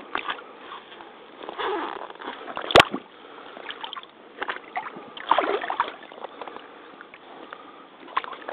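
Mitsuuma crotch-high rubber waders wading through shallow muddy water: irregular splashing and sloshing steps, with one sharp click about three seconds in.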